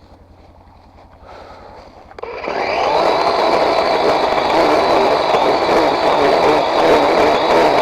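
A chainsaw idling low, then revved up sharply about two seconds in and held at full throttle.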